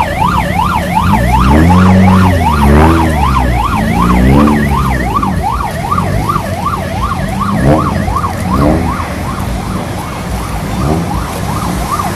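Electronic siren in a fast yelp, its pitch sweeping up and down about three times a second without a break. Under it are a steady low rumble and a few lower swooping tones, loudest a couple of seconds in.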